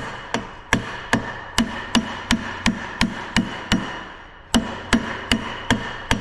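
Steel hammer striking the front-axle hub of a Fendt 724 tractor, about three sharp blows a second with a brief pause about four seconds in; the metal rings after each blow. The hub is being knocked to work it loose.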